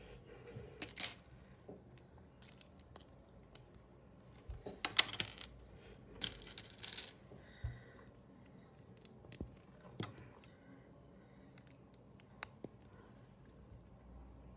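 Small plastic Lego pieces clicking and rattling against a glass tabletop as they are picked up, sorted and pressed together. The clicks are irregular and sharp, with a busy cluster about five to seven seconds in and a few single clicks later.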